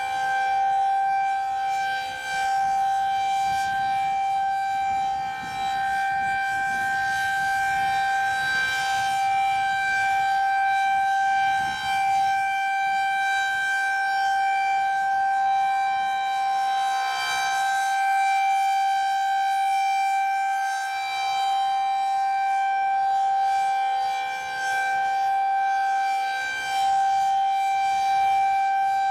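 Federal Signal 2001-SRN single-tone rotating outdoor warning siren sounding a steady wail at full pitch, its level swelling and dipping slightly as it sounds.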